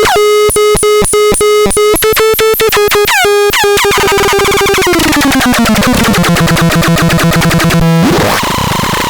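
Excrementon 320 electronic noise synthesizer playing a buzzy pitched tone chopped into rapid stuttering pulses that speed up. About five seconds in the pitch slides down and holds lower, and near the end the sound breaks into a harsh noisy wash with a short rising sweep.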